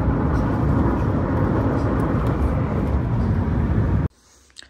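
Loud steady noise, heaviest in the low end, that cuts off abruptly about four seconds in.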